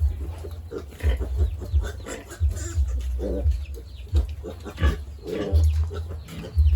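Farmyard pigs grunting in short, irregular calls, with chickens clucking among them, over bursts of low rumble.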